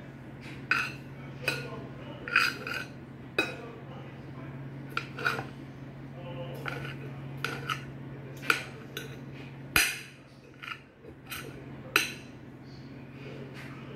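Knife and fork clinking and scraping against a plate while cooked chicken breast is cut and shredded, in irregular sharp taps. A steady low hum runs underneath.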